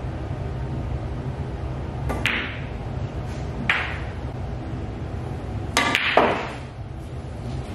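Two pool shots: each a sharp click of the snooker cue's tip on the cue ball, followed by the clack of cue ball on object ball, which is knocked into a pocket. Four hard clicks in all: one about two seconds in, another a second and a half later, and a close, louder pair near the end, over a steady low room hum.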